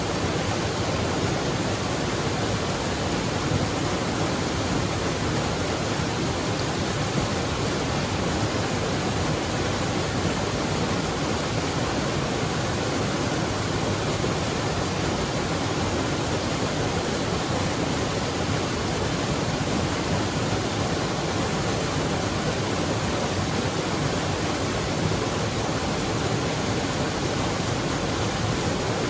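Waterfall: falling water rushing in a steady, unbroken roar.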